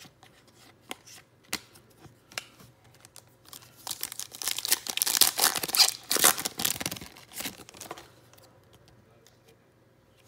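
Foil wrapper of a Donruss Optic basketball card pack being crinkled and torn open, a dense crackle starting about four seconds in and lasting some three seconds. Before it, a few light clicks of trading cards being handled.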